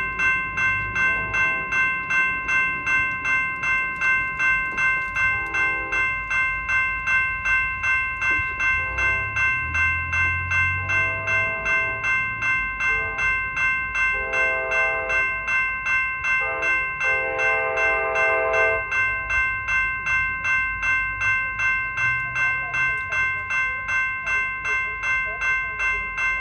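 Railroad crossing bell ringing steadily about twice a second while a locomotive air horn sounds a series of chord blasts over it, the last one the longest, with a low locomotive rumble partway through.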